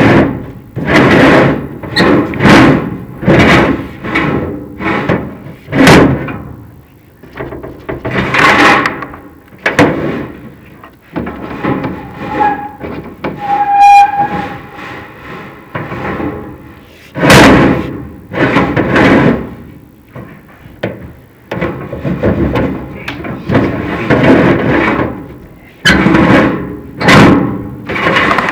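Chimney inspection camera and its push rod knocking and scraping against a metal fireplace flue: loud, uneven knocks and scrapes about one every second, with a brief steady tone about halfway through.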